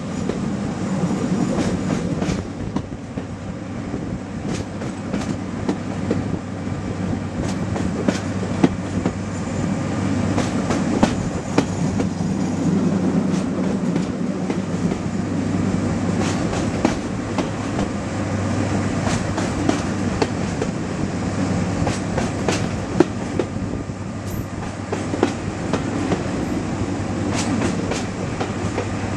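Class 55 Deltic diesel locomotive on the move: the steady low drone of its Napier Deltic engines, with the wheels clicking irregularly over rail joints.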